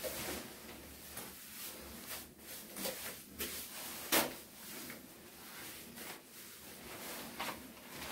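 Irregular scraping and short knocks of hand work on wet cement mortar, spreading and smoothing a bathroom floor's waterproofing coat, with one sharper knock about four seconds in.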